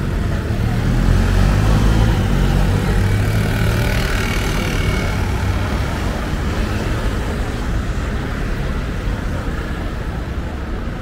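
City street traffic: a motor vehicle passing close by, its low engine rumble loudest in the first few seconds, then easing off.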